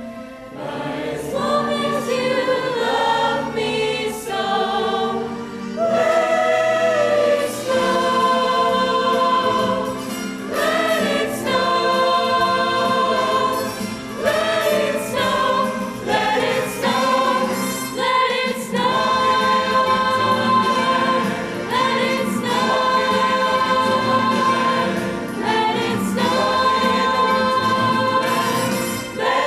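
A choir singing in harmony, with sustained notes that change about every second or so.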